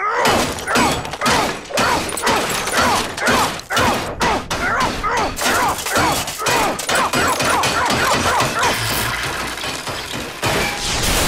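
Cartoon crash-and-bang sound effects of something being pounded and smashed over and over, about two to three blows a second, with a falling-pitched sound alongside many of the blows.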